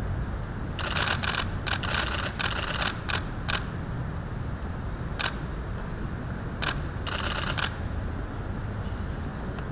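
Camera shutters clicking in rapid bursts from about a second in until past three seconds. Then come a couple of single clicks and another short burst near the end, over a steady low background rumble.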